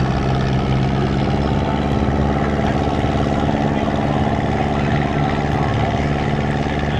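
Engine of a small antique runabout running at a steady speed across the water, a low even hum that holds its pitch throughout.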